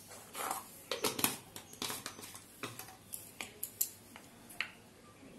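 Irregular light clicks, taps and clinks of a spoon and spice containers being handled. The sounds fade out about four and a half seconds in.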